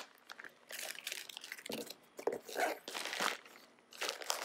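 Heavy black plastic contractor bag crinkling and rustling in irregular bursts as hands pull at it and fold it back.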